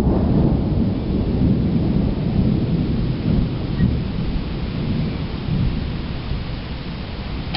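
Rolling thunder over steady rain; the deep rumble is loudest at the start and slowly dies away.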